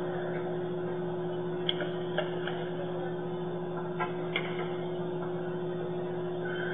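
Steady electrical hum in a small room, with a few small clicks and taps as a plastic water bottle is handled and set down on the table.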